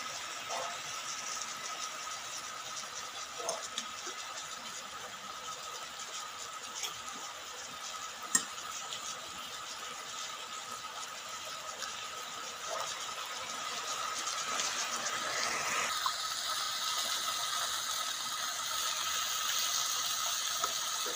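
Sliced beef and vegetables sizzling on a hot grill pan, with scattered pops and clicks. The sizzle gets louder about three-quarters of the way through, as the food is stirred with chopsticks.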